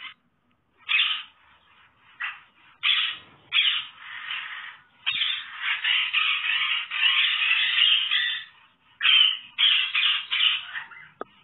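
An animal calling over and over: several short cries, then a longer run of calling in the middle, then more short cries near the end.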